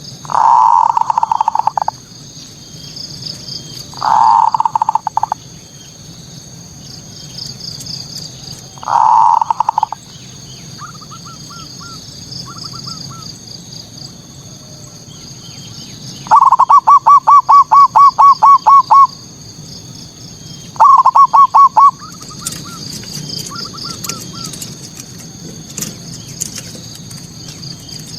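Male zebra dove (perkutut) singing its staccato cooing song: five bursts of rapid repeated notes, the longest a run of about a dozen clear notes two-thirds of the way through. This is the territorial 'manggung' song used as a lure to provoke rival doves. A steady high insect buzz runs behind it.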